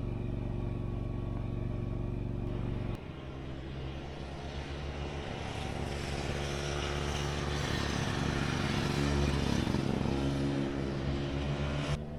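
A motor vehicle engine running steadily, cut off abruptly about three seconds in, then a rougher engine sound with rising road or wind rush that builds before another abrupt cut near the end.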